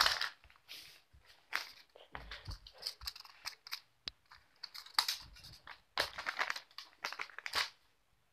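Plastic toy figures being picked up and handled by hand, rustling and crinkling in irregular short bursts.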